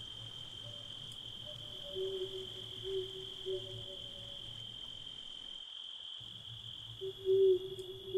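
Crickets trilling in a steady, unbroken high-pitched chorus. A few short, low calls from another animal come in around two to four seconds in and again near the end.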